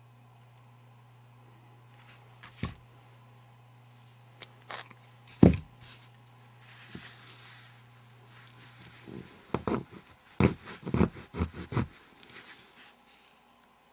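Sharp clicks and knocks of metal pliers and a poker chip being handled, the loudest about five seconds in. From about nine and a half seconds in comes a quick run of scrapes and clicks as a pointed tool gouges the poker chip's edge.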